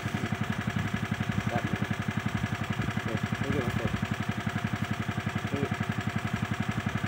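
An engine idling steadily with a rapid, even pulse. A few brief, faint pitched sounds rise over it around the middle.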